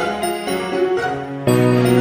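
Background music: a melody of light pitched notes that gets louder about three quarters of the way through, when low bass notes come in.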